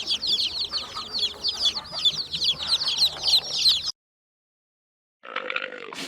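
Domestic chicks peeping: many quick, high, falling chirps overlapping in a busy chorus, cutting off suddenly about four seconds in. A brief, lower sound follows near the end.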